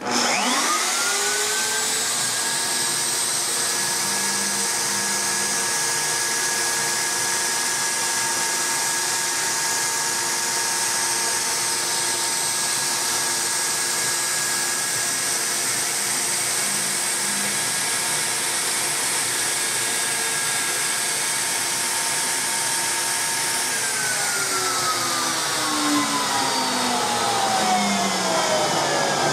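CNC router spindle with a half-inch roundover bit spinning up, then running with a steady whine as it cuts the rounded top edge of wooden 1911 pistol grips. About 24 seconds in it winds down, its pitch falling.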